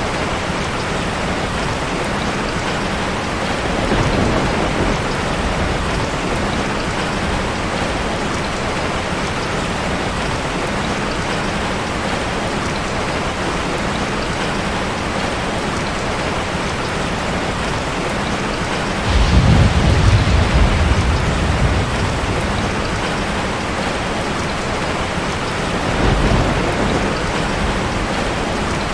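Steady heavy rain falling, with low thunder rumbling in three swells: a faint one early, the loudest starting suddenly about two-thirds of the way through and lasting a few seconds, and a shorter one near the end.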